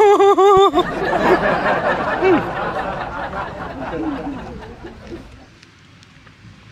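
A man laughing: a short wavering voiced laugh, then breathy, wheezy laughter that trails off over a few seconds.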